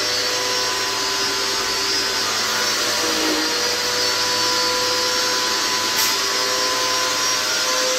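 DYLECT Ultra Flow Plus 1900-watt electric pressure washer running steadily: a motor whine over an even hiss.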